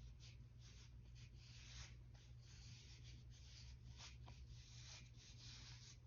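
Faint swishing dabs of a damp paper towel patted against the face, several a second in an uneven rhythm, over a low steady hum.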